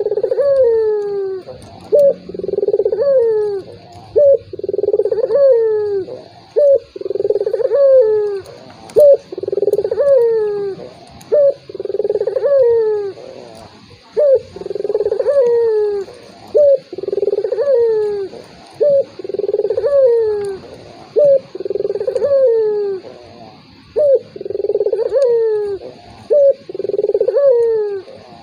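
Ringneck dove (burung puter) cooing over and over: each phrase is a short note followed by a longer falling, rolling coo, repeated about every two seconds. The cooing stops near the end.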